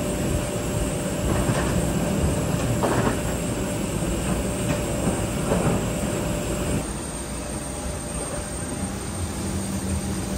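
Steady mechanical drone of an airliner parked at the gate, heard from the jet bridge, with a faint steady whine on top until about seven seconds in, when it drops away and a plainer drone remains; a few faint knocks.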